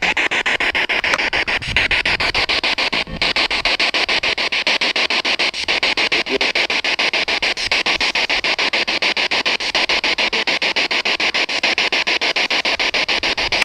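Radio static hissing from a spirit box (ghost box) sweeping through stations, with a rapid, regular stutter.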